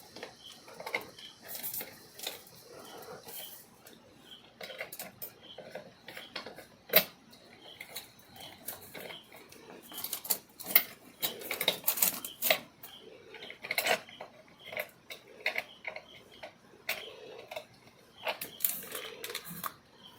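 Irregular small clicks and knocks of wires and terminal screws being worked on a plastic electrical switch board while the neutral wire is connected, the sharpest about 7 and 11 seconds in. A faint short chirp repeats about twice a second behind them.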